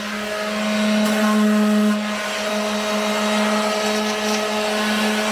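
Electric random orbital sander running steadily, pressed against the side of a plastic bucket of wet concrete to vibrate it and settle the mix.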